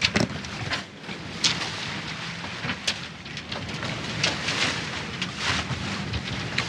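Wind rushing over the deck of a sailing catamaran under way, with a few sharp clicks and knocks scattered through it, about one every second or so.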